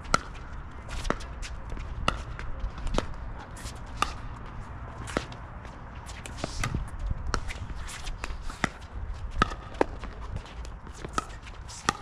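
Pickleball rally: paddles hitting a plastic pickleball back and forth, sharp pocks about once a second, with shoes scuffing on the hard court between shots.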